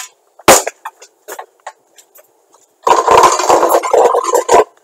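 A burning CRT television's internals popping and crackling: one sharp pop about half a second in, scattered small crackles, then nearly two seconds of loud, dense crackling and sputtering near the end.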